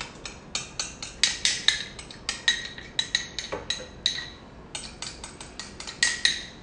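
Metal spoon scraping and tapping against a small ceramic bowl, a quick run of clinks about three or four a second, each with a short ring, with a brief pause a little past the middle.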